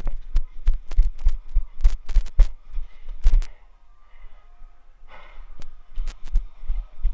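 Quick low thumps, several a second, with sharp clicks and cracks over them, easing off for a moment in the middle: close-up movement and handling noise from an airsoft player during a game.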